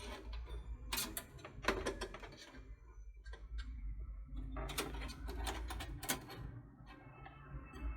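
Clicks and rattles of metal hardware being handled as a USB 2.0 header bracket is fitted into a rear expansion slot of a desktop PC case, over a low steady hum.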